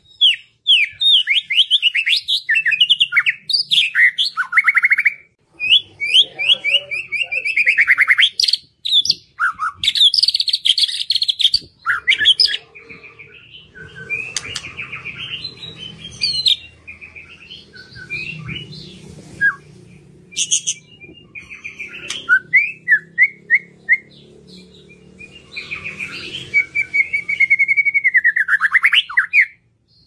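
White-rumped shama singing a long, varied song of quick rising and falling whistles and fast trills, broken by a few short pauses, with some sharp clicking notes.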